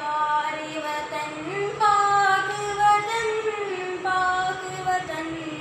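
A boy singing solo and unaccompanied, holding long notes that bend and slide in pitch, with a louder, higher phrase about two seconds in.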